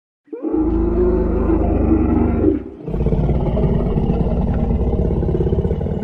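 Dinosaur roar sound effect: two long, low roars, the first starting about a third of a second in and breaking off shortly before the three-second mark, the second following at once and beginning to fade out near the end.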